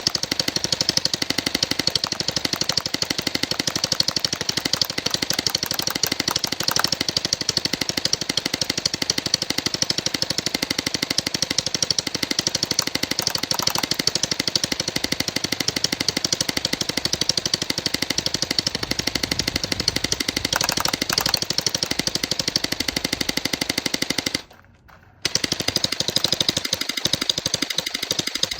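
Splat-R-Ball electric gel blaster firing on full auto in a rapid, unbroken stream of shots, stopping for under a second about 24 seconds in before firing again.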